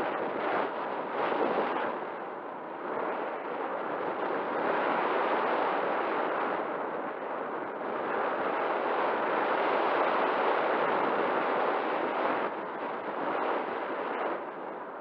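Airflow rushing past a camera mounted on an RC sailplane gliding unpowered. The wind noise is steady and swells and eases every few seconds as the glider's speed and attitude change.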